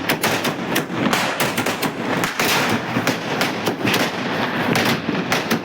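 Sky shot aerial fireworks going off overhead: a continuous run of sharp cracking bangs, several a second and overlapping.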